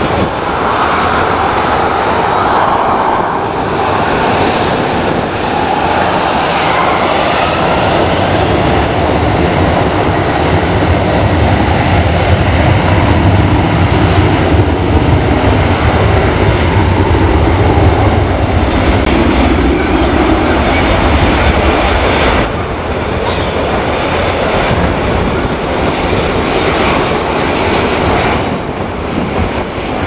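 Ryanair Boeing 737's jet engines running loudly as the airliner moves along the runway, with a deep rumble swelling in the middle and a whine rising briefly early on. The roar eases a little near the end.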